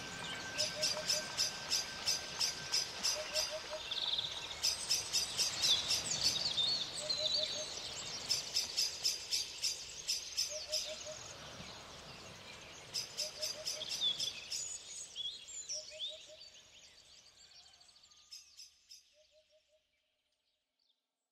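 Birds chirping and trilling in quick runs of high notes, with a short three-note lower call every few seconds; the birdsong fades away, leaving a few last chirps.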